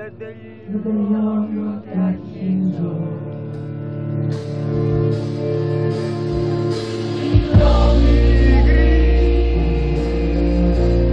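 Live band and singer performing a Greek song through a concert PA, recorded from within the crowd. Sustained chords and singing at first, then cymbals come in and, a little past halfway, a heavy bass hit brings in the full, louder band.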